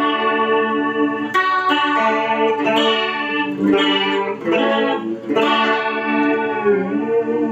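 Electric guitar chords strummed through the Joyo Vision pedal's tri-chorus modulation, a new chord every second or so.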